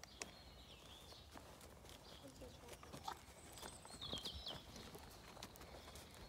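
A pony's hooves at a walk on a soft arena surface, faint and uneven footfalls, with the leader's footsteps alongside. A few short high chirps sound about half a second and about four seconds in.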